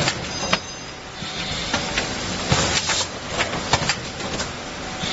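Vertical three-side-seal pouch packaging machine running, its sealing jaws and mechanism clacking and knocking repeatedly over a steady mechanical hiss.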